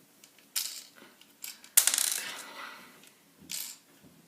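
Plastic Lego pieces clicking and rattling as a Lego key piece is worked into a Lego puzzle box: a click, then a louder clatter with a short rattle, then another click.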